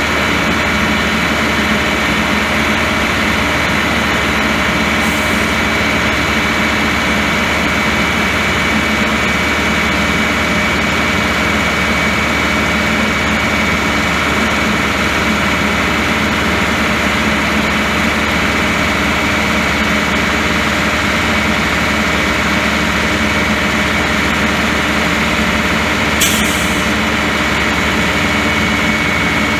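Caterpillar 3208 diesel engine of a crane truck running steadily, with a constant high tone over the engine sound. A brief sharp click near the end.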